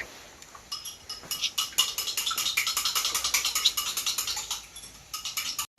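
Chopsticks beating raw eggs in a ceramic bowl: a fast, even run of ringing clinks against the bowl that starts about a second in and tails off near the end.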